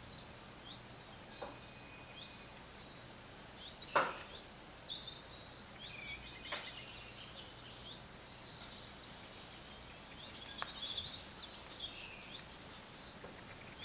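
Small birds chirping and trilling repeatedly over a steady high-pitched tone, with a few sharp clicks, the loudest about four seconds in.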